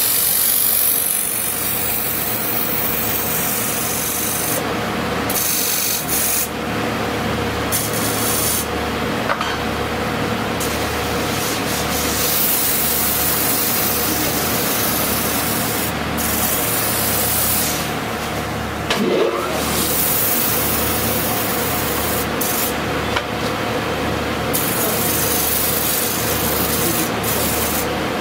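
Wood lathe spinning a wooden blank while a hand-held turning tool cuts and scrapes its inside in a finishing cut, a steady rasping hiss over the lathe's motor hum. The cutting hiss drops away briefly several times.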